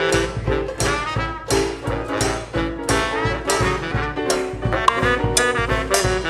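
Up-tempo swing jazz with brass, horns playing over a steady quick beat of about two to three strokes a second.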